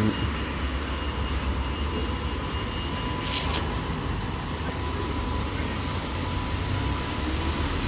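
Steady low rumble of road traffic on a wet street, with a brief hiss about three seconds in.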